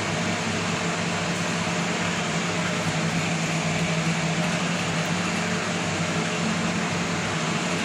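Steady mechanical whir with a low hum, even and unchanging throughout.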